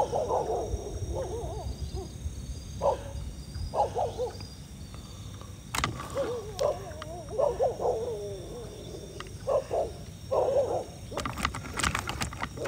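A dog howling and whining in wavering, drawn-out calls, in several bouts, with a few sharp clicks near the end.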